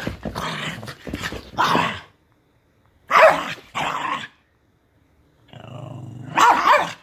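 Small terrier-type dog play-growling and barking in repeated bursts, with a pause in the middle and a low growl building into louder barks near the end: excited rough play after a walk.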